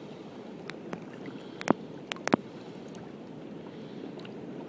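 Water lapping and splashing around a paddled kayak, with a few sharp clicks in the first half.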